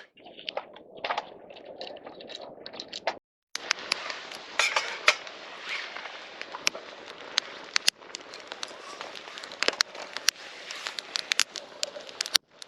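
Wood campfire crackling, with many irregular sharp pops and snaps over a steady hiss of burning.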